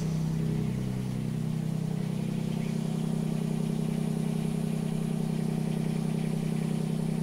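Mini excavator's small diesel engine idling steadily.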